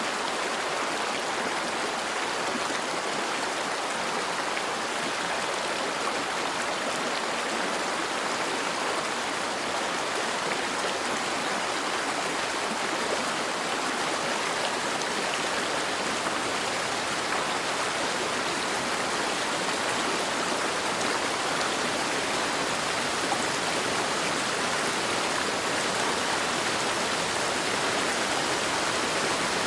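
Steady heavy rainfall: a dense, even hiss of falling rain that does not let up.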